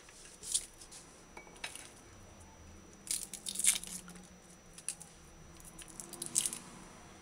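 Garlic clove being peeled and trimmed with a small knife: the papery skin crackles and tears in short bursts, the loudest a little after halfway through.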